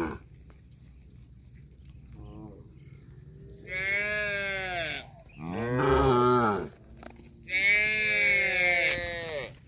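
Cattle mooing: a faint short call about two seconds in, then three loud drawn-out moos one after another, the last the longest.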